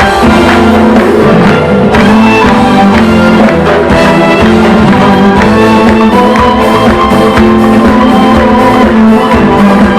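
Loud live Turkish pop band music with a steady beat and held instrumental notes.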